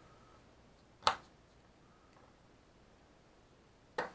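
Two sharp clicks of small plastic and metal parts being handled on a quadcopter motor and propeller, the louder about a second in and another near the end.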